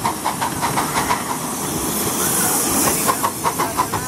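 10¼-inch gauge 4-6-2 miniature steam locomotive, a model of an LMS Coronation-class Pacific, running slowly with a quick, regular beat about five a second. A hiss of steam rises from about two seconds in and fades again about a second later.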